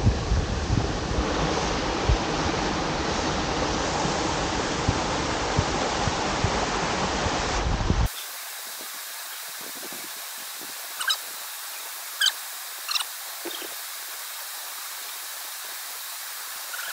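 Waterfall rushing steadily. About halfway through, the level drops suddenly to a quieter, more distant water hiss, over which a bird gives three short calls.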